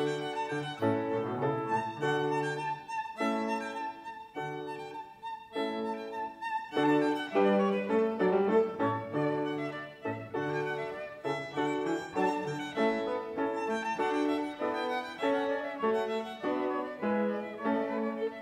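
A violin and a cello playing a classical duet, the violin's notes above the cello's low line.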